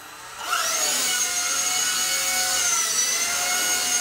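Eachine E130 micro RC helicopter spooling up on its one-key takeoff: the motor whine rises in pitch about half a second in, then holds as a steady high whine with rotor rush as the helicopter lifts off and hovers.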